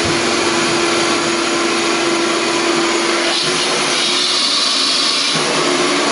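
Wet-dry shop vac running steadily: a motor hum under the rush of air. About three seconds in, for about two seconds, the hum drops out and a higher hiss rises while the pantyhose-covered hose end is held to the sink drain, sucking at it. Then the steady running sound returns.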